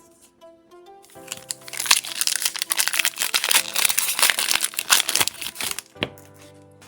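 A foil Pokémon booster pack wrapper being torn open and crinkled in the hands, a dense crackle from about a second in until about six seconds in, over background music.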